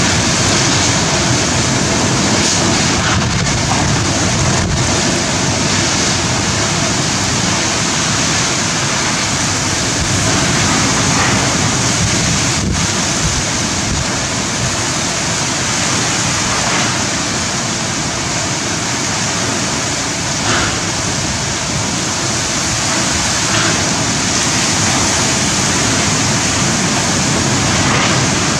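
Super cyclone Amphan's storm-force wind and very heavy rain: a loud, steady rush of wind-driven rain.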